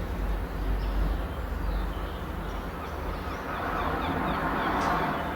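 Birds chirping over a steady low rumble of outdoor background noise, with a broader rushing sound swelling about four seconds in.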